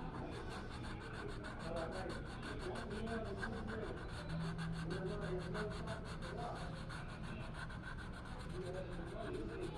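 Continuous rubbing and scratching strokes of an art tool working a drawing or painting surface, over a steady low electrical hum.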